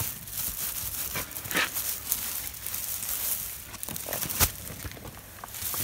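Plastic film crinkling as gloved hands handle shrink-wrapped cigarette cartons, with scattered clicks and knocks; one sharp knock about four and a half seconds in is the loudest.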